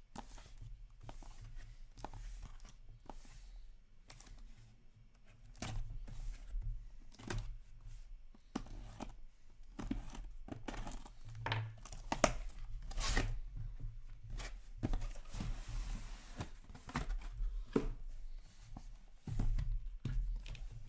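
A taped cardboard case being opened by hand: the packing tape is torn and the flaps are pulled apart, with many short scrapes and knocks of cardboard as the boxes inside are handled. About fifteen seconds in there is a longer tearing sound.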